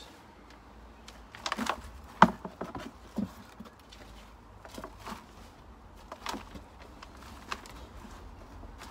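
Gloved hands rummaging and scraping through damp potting compost in a plastic tub, with irregular scrapes and soft knocks several times.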